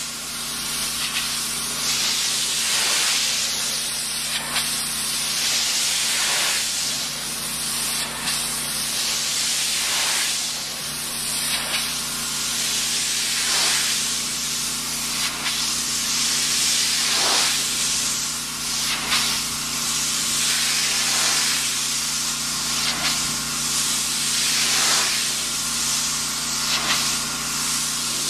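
Pressure washer jet blasting wooden deck boards: a loud, continuous hissing spray that swells and dips as the nozzle sweeps across the wood, over a steady low hum.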